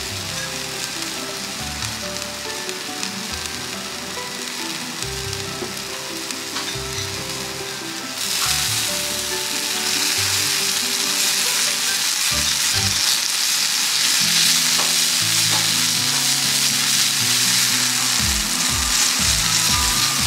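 Steak sizzling, the hiss jumping noticeably louder about eight seconds in, over quiet background music.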